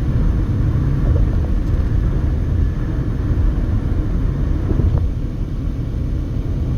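Steady low rumble of tyre and engine noise inside a passenger car cruising at highway speed.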